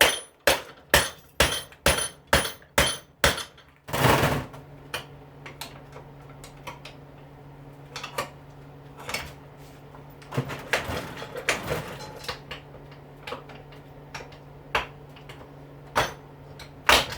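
Hammer blows on a dishwasher motor, about three strikes a second, driving off a tight bearing, stopping after about three and a half seconds. A short scraping burst follows, then a steady low hum with scattered metallic clinks of parts being handled.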